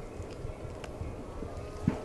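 Quiet outdoor background with a faint click and a short, soft thump near the end.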